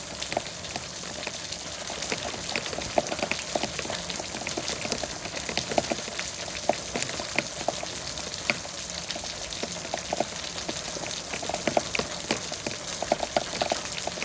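Steady rain hissing, with many close individual drops ticking irregularly on a surface, some of them with a slight ringing note.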